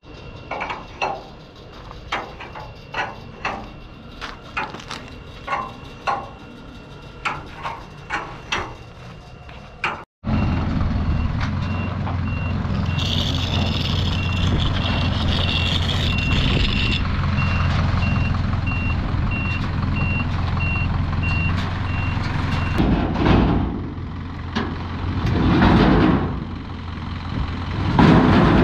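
Heavy steel chain clanking in a quick string of sharp metal clinks. After a cut, a flatbed recovery truck's engine runs steadily with repeated reversing beeps and a hiss of air. Then a wrecked truck chassis scrapes and grinds as it slides down the tilted bed, in several loud surges.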